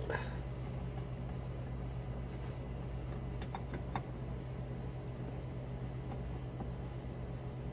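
A steady low hum with a few faint clicks and knocks from a hand fumbling under the front trunk lid at the Tesla Model 3's stuck secondary frunk latch, trying to press it down and unhook it.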